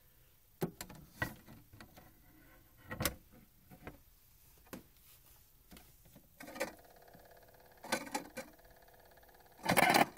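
Record player being handled, with scattered clicks and knocks. About six seconds in it starts to sound: a steady pitched tone with louder bursts near the end, from a turntable that is making weird noises and not spinning properly.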